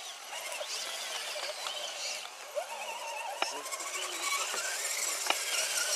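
Electric motor and gearbox of a Hilux-bodied RC scale crawler whining as it is driven slowly over rough ground. The whine rises and falls in pitch with the throttle, with a few sharp clicks from the drivetrain or tyres on stones.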